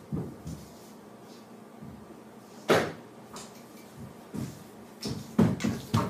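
Thumps and knocks of someone hurrying through a house: a single sharp knock about three seconds in, then a quickening run of thumping footsteps near the end as they come back.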